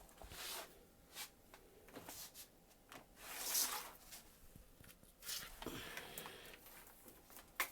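Faint handling noises from a laptop and its charger plug being moved about: soft rustles and light clicks. There is a louder rustle about three and a half seconds in and a sharp click near the end.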